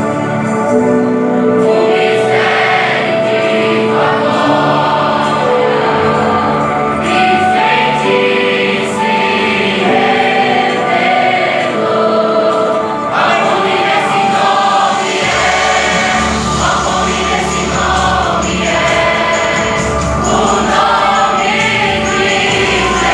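Christian worship song sung by a choir over instrumental backing, with long held notes; a deep bass line comes in about halfway through.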